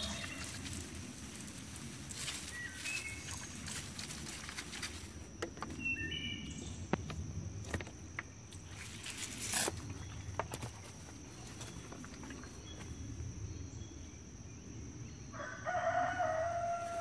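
A rooster crows once near the end, a drawn-out call of about a second and a half. Before it come a few sharp clicks and knocks, the loudest about halfway through, and faint short chirps.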